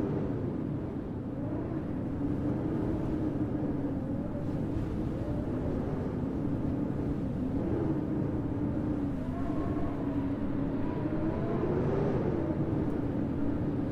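Howling blizzard wind, a steady low rumble with a moaning tone that slowly wavers up and down in pitch.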